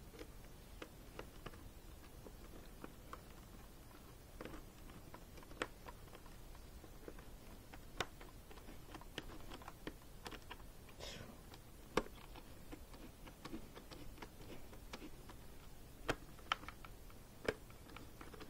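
Faint, irregular small clicks and taps of a screwdriver and plastic helmet hardware as a stubborn last visor screw is worked into a football helmet's facemask clip, with a few sharper clicks standing out.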